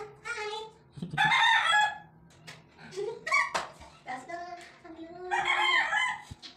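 A rooster crowing, about three drawn-out calls a couple of seconds apart.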